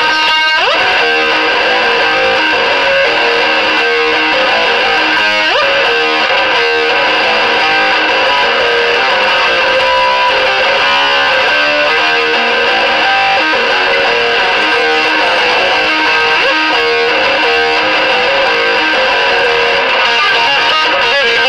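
Epiphone Prophecy electric guitar played through high-gain tube amps (Mesa/Boogie Nomad on its second channel and a Hughes & Kettner TubeMeister 36) with a Boss Metal Core pedal, playing heavily distorted hard rock/metal riffs. The notes are held and even in loudness, with a sliding note near the start.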